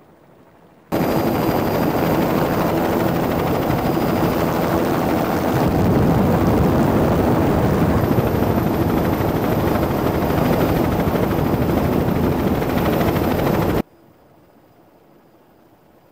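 Racing snowmobile engine running hard at speed with a dense, rapid pulsing. It cuts in abruptly about a second in and cuts off abruptly near the end.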